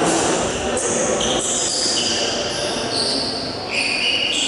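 Steady, echoing sports-hall noise: indistinct chatter of people mixed with the general din of the large gym.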